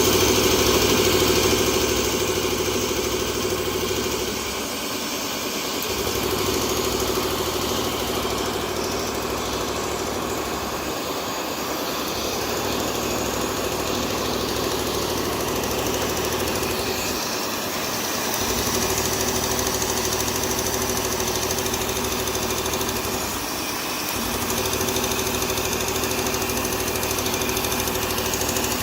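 A machine running steadily with a hum, its low rumble cutting out briefly about every six seconds.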